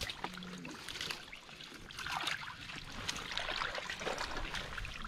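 Shallow water and mud trickling and sloshing as a hooked metal probe on a long stick is worked into the mud to search for crabs, with small scattered clicks and scrapes.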